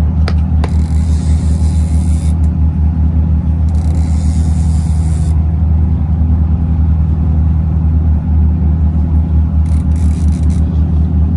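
A boat engine idling: a steady, low, pulsing rumble, with a few light clicks right at the start.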